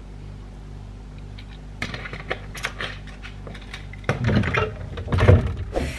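Light clinks and knocks of bottles in a fridge door as a drink bottle is put back, then louder bumping and rustling close to the microphone, over a steady low hum.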